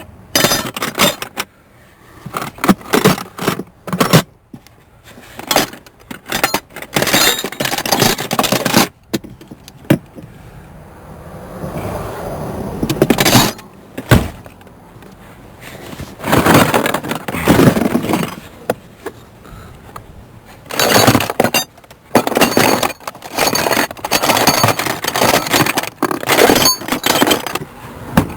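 Hand tools on car metal: runs of rapid ratchet-wrench clicking, with metallic clinks, scrapes and a few sharp knocks in irregular bursts.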